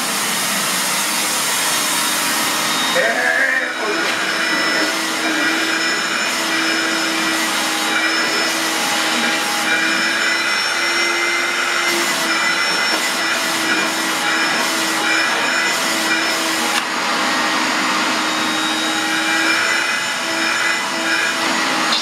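Canister vacuum cleaner running steadily, a rush of air over a motor hum, as its hose nozzle is worked over a cat's fur. The hum's pitch wavers slightly now and then.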